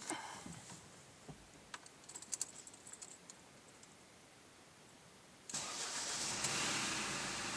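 A few light clicks, then a Ford 1.4 TDCi four-cylinder diesel engine starts abruptly about two-thirds of the way in and keeps running steadily. It is the first start after an oil pump replacement.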